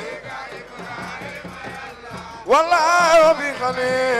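A man's solo voice singing an Islamic devotional chant into a microphone. After a quieter gap, his voice comes in about two and a half seconds in on a rising, wavering held note.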